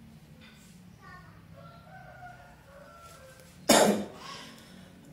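A single loud, sharp cough about three-quarters of the way in.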